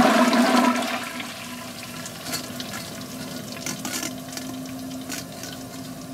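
Liquid nitrogen boiling hard around a submerged steel puck in the final rush of boiling as the steel nears the nitrogen's temperature, dying down about a second in to a quieter, steady fizz as the two equalize.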